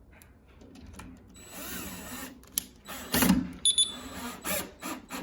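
Metal door-lock hardware clicking and clattering in irregular bursts as a new handle and deadbolt set is handled and fitted into the door, loudest about three seconds in, with a brief high squeak shortly after.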